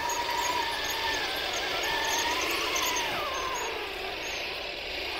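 Torro 1/16-scale RC Sturmtiger tank driving, its electric drive motors and gearboxes whining over a steady hiss. The whine rises and falls with speed, then glides down and fades about three seconds in.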